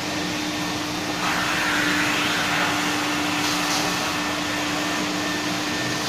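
Single-phase industrial drum vacuum cleaner running with its induction suction motor, a steady hum under a rushing hiss of air through the hose and floor nozzle. About a second in the hiss gets louder and brighter as the nozzle works the concrete floor.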